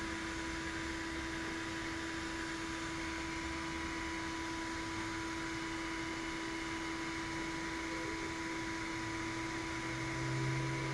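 Steady hum and hiss like a running fan, with two constant tones over it; a lower hum swells in near the end.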